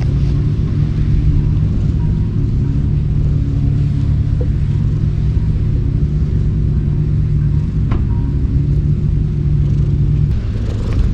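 Domestic cat purring steadily, close to the microphone while being stroked; the purr fades out about ten seconds in as the cat gets up.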